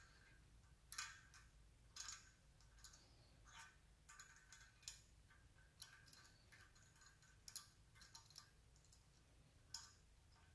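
Faint, irregular small metallic clicks, about one a second, from a hand tap being worked back and forth in a knurled T-handle tap wrench as it cuts an M5 thread into a drilled engine core plug.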